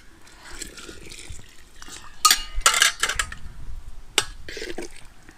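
Hot water poured into a metal pot of boiling rice, then a long perforated metal ladle stirring the rice and knocking against the pot: a quick cluster of clinks a little over two seconds in and one more about four seconds in.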